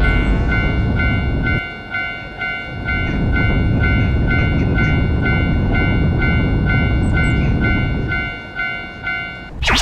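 Japanese level-crossing warning bell ringing its repeating 'kan-kan' about twice a second while a train rumbles past. Both cut off suddenly near the end.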